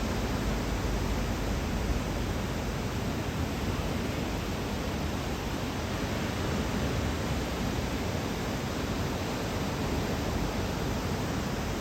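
Steady roar of ocean surf breaking on the beach, heard as an even hiss with no single wave crash standing out, from a typhoon-driven groundswell.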